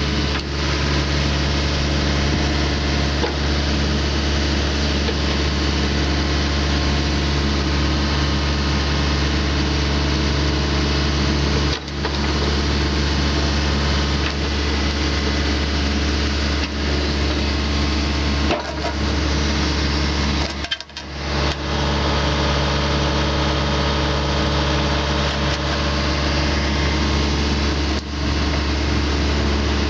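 Diesel engine of a 2016 Takeuchi TB240 mini excavator running at a steady speed, with a few brief dips in level.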